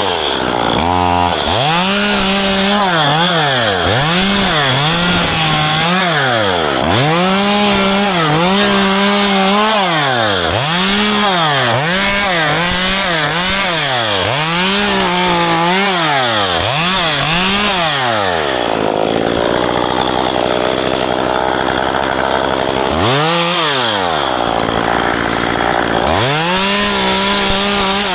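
Small two-stroke engine of a gas-powered pruning saw, revved up and let back down over and over, roughly once a second, while cutting ficus branches. About two-thirds of the way through it drops to a lower, steady idle for a few seconds, then revs up again.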